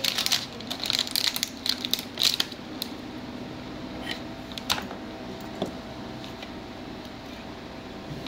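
Handling noise from a disassembled LCD monitor: quick small clicks and crinkling of plastic and ribbon cable as hands work at the panel's board. Dense for the first two and a half seconds, then only a few scattered clicks over a steady low hum.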